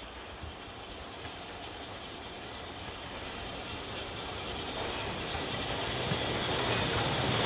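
Steam-hauled train approaching, growing steadily louder as it nears.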